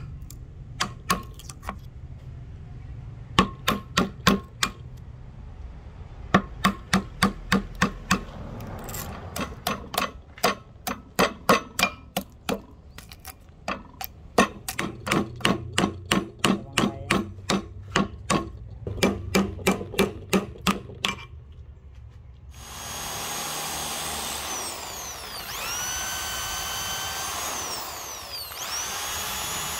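Hammer blows with a metallic ring, in irregular runs of several quick strikes at about two to three a second, for roughly twenty seconds. A power tool then starts up and runs with a steady whine that dips in pitch and recovers twice.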